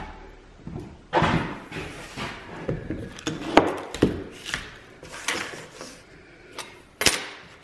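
Handling noises on a plywood panel: a spool of mechanics wire being unrolled, and the wire and a steel ruler laid on the wood. Irregular rustling with scattered knocks, and a sharp click near the end.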